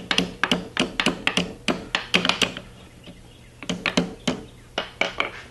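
Ball-peen hammer tapping on a rusted metal table saw fence lever to break it loose, light quick strikes at about four a second with a short ring after each. The taps break off for about a second a little after halfway, then start again.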